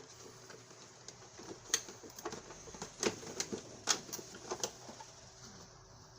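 Plastic parts of a small vacuum cleaner's housing being handled and fitted back together: irregular sharp clicks and light knocks, a few a second at most, with gaps between.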